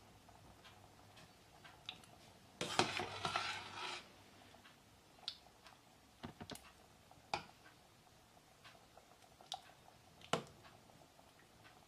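Metal ladle stirring thick yogurt soup in a stainless steel pot, faint: a short noisy stretch of stirring about three seconds in, then a few light clinks of the ladle against the pot.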